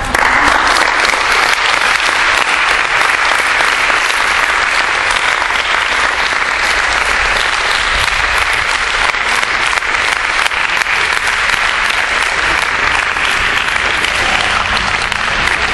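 A group of people applauding, dense continuous clapping that holds steady throughout.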